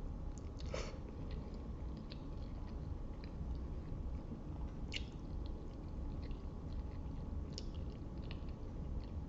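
Close-miked chewing of a mouthful of spaghetti, with soft wet mouth smacks and clicks scattered through, a few of them sharper.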